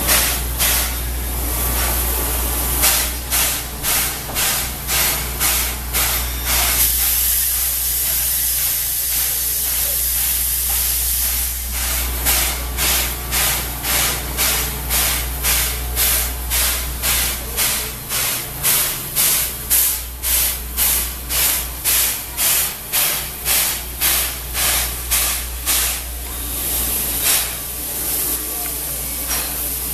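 Steam locomotive 58654, a JNR Class 8620, chuffing at a slow steady beat of about two exhaust beats a second over a continuous hiss of steam. For a few seconds about a quarter of the way in the beats stop, leaving only the steady steam hiss, then they resume.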